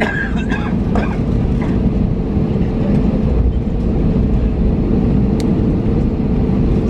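Airliner cabin noise of an Airbus A321neo taxiing: a steady low rumble of the engines and the aircraft rolling, with a steady hum over it. Faint voices in the first second or so.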